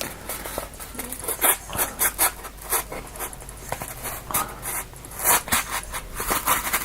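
Blade of a small Sanrenmu A123 folding knife sawing through two layers of cardboard: a run of quick, irregular scraping strokes.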